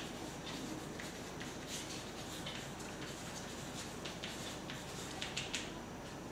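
Chalk on a blackboard as words are written: a string of faint short taps and scratches, with a few sharper ticks near the end.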